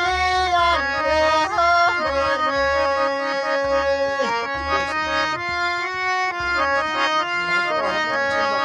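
Harmonium playing held, sustained reed chords and melody, with a hand drum beating low strokes underneath, in folk music.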